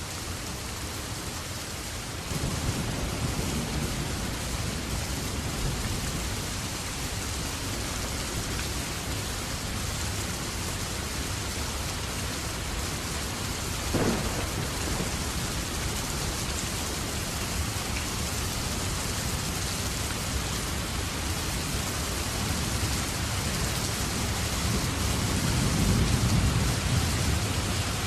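Steady heavy rain, with low rolling thunder: a rumble sets in about two seconds in, a short sharp crack comes halfway through, and another rumble swells near the end.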